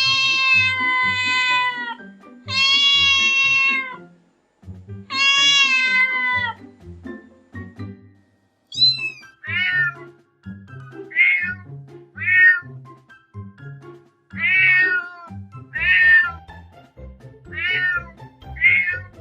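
Domestic cat meowing: three long, drawn-out meows, then a brief high chirp and a string of seven shorter meows, over background music.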